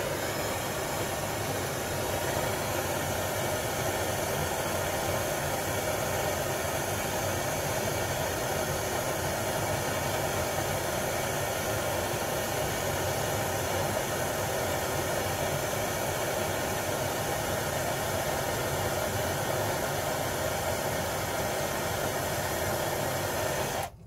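Steady hissing noise from the tool heating the copper battery-cable lug so the solder melts and flows into the joint. It holds an even level throughout and cuts off suddenly at the end.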